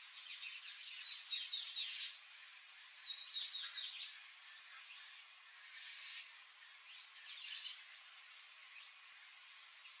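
Palm tanager song: a fast, high-pitched, squeaky twittering of quickly repeated arched notes that runs for about five seconds, then a shorter, fainter phrase a few seconds later.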